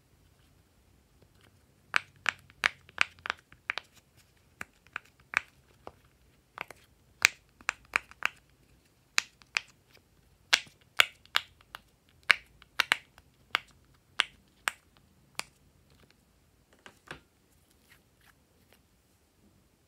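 Silicone butterfly push-pop fidget toy having its bubbles pressed in one after another, each giving a sharp pop. The pops come a few a second in uneven runs, starting about two seconds in, with a couple of softer clicks near the end.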